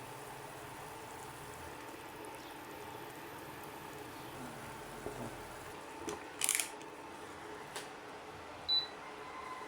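Quiet kitchen background with a steady low hiss, a few light clicks and knocks of things being handled, a brief scraping rustle about six and a half seconds in, and a short high beep near the end.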